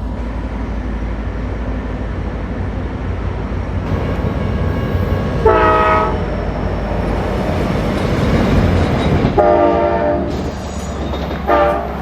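Amtrak Cascades passenger train running by with a rumble that swells as it nears. Its horn sounds three blasts: one about halfway through, one near ten seconds, and a shorter one near the end.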